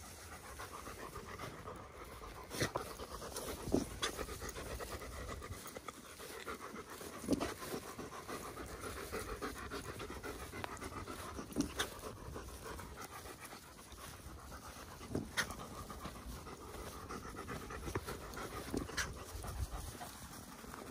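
German Shepherd dogs panting steadily and rapidly close by, with about six short sharp knocks scattered through.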